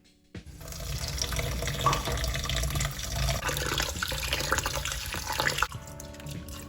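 Tap water running into a sink. It starts about half a second in and is shut off sharply near the end, followed by a few drips.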